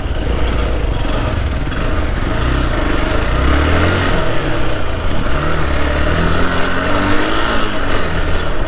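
Motorcycle engine running under way on an off-road trail, its pitch rising and falling as the revs change, over a heavy steady rumble.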